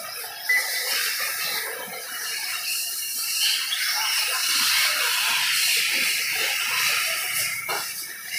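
Electric 1/8-scale RC buggies racing: a hissing wash of motor whine and tyre noise that rises and falls, with a sharp click about half a second in.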